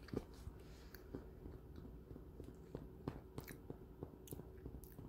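A person chewing a snack stick close to the microphone with her mouth closed: faint, irregular small crunches and mouth clicks.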